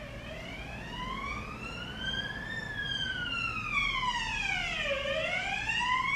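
Emergency vehicle siren wailing, its pitch sweeping slowly up and down, about one rise and fall every five seconds. It grows louder in the second half.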